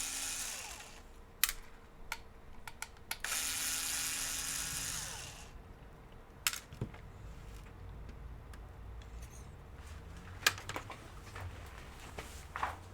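Small electric screwdriver whirring in two short runs, one trailing off at the start and one lasting about two seconds, driving the screws of the laptop's case or drive bay. Scattered sharp clicks and light knocks of small parts and screws being handled follow.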